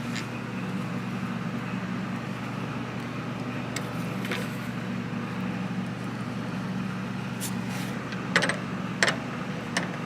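Steady low hum, with a few light clicks and knocks near the end as the antenna mast's sleeve is fitted by hand.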